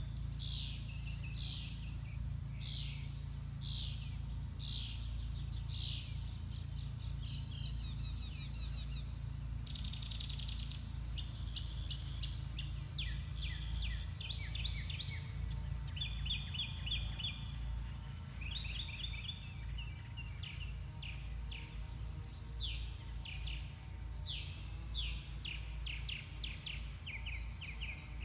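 Wild songbirds singing: a string of short, evenly repeated chirps, then rapid trilled phrases, over a steady low rumble.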